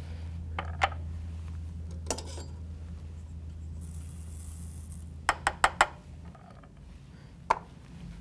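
Light metallic clinks of brass cartridge cases and the powder scale's pan being handled while checking powder charges, with a quick run of four clinks about five seconds in. A soft hiss about four seconds in is powder being poured from the pan into a case.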